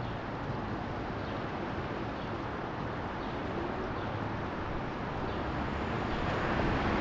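Steady outdoor background noise, an even rush with a low rumble, getting slightly louder over the last couple of seconds.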